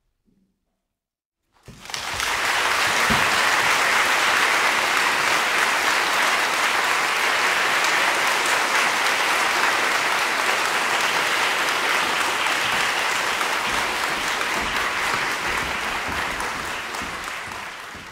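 Audience applauding, starting suddenly after a short silence about two seconds in, holding steady, then fading near the end.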